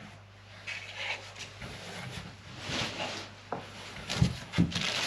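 Packaging and parts being handled while unpacking a box: irregular rustling and rubbing, with a few light knocks in the second half.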